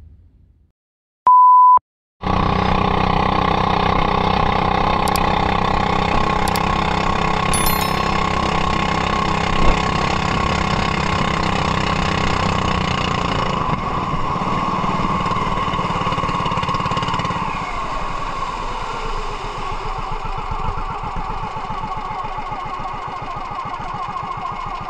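A short, loud, pure beep, then the steady running of a small outrigger fishing boat's engine. About three-quarters of the way through, its pitch falls and it settles into a lower, slightly quieter run.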